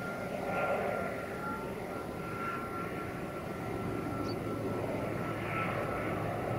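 Twin Pratt & Whitney Canada PW127 turboprop engines of an ATR 42-500 airliner flying past on approach to land. A steady high whine rides over a broad propeller drone.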